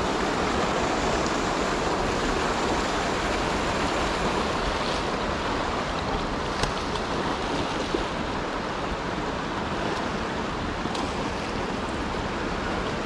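Fast river rapids rushing steadily, with a few faint ticks now and then.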